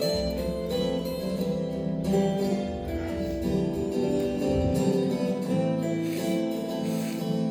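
Instrumental music on plucked strings, with sustained notes and no voice. A low rumble runs underneath for the first four and a half seconds.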